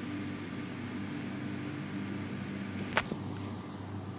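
Raw chicken pieces frying in oil in a pan with a steady sizzle while a spatula stirs them; one sharp click about three seconds in.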